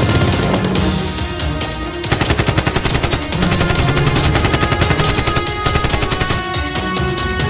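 Rapid automatic gunfire sound effects in long bursts, laid over a driving action music track.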